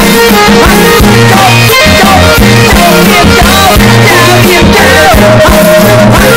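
Khmer pop song played extremely loud and distorted, pushed to near full scale: a man sings over electric guitar, bass and a steady drum beat.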